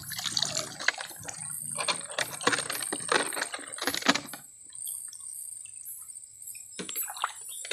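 Water splashing and dripping, with quick clicks and rattles, as hands push a caught freshwater crab into a clear plastic bottle. The sounds come thick for the first half, then die down, with a couple of sharp clicks near the end.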